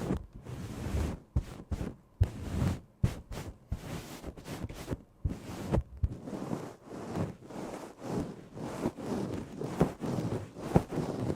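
A run of soft, irregular knocks and taps with rustling in between, as from objects being handled for foley. A few of the knocks stand out louder.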